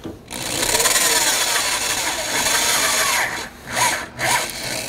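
Power drill boring out a broken exhaust manifold stud with its largest bit, enlarging the hole so it can be tapped. The motor runs steadily under load for about three seconds, then in a few short bursts.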